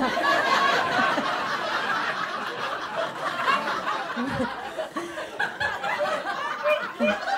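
Comedy club audience laughing at a punchline, loudest at the start and slowly dying down.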